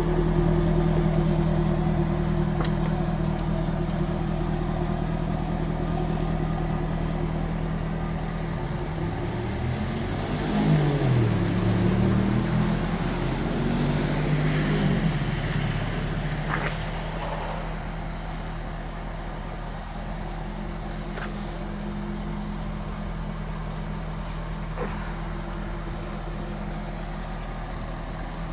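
Jaguar F-Type R's supercharged 5.0-litre V8 idling, then revved several times around the middle, its pitch rising and falling, before settling back to a quieter steady idle. A few faint sharp clicks follow the revs.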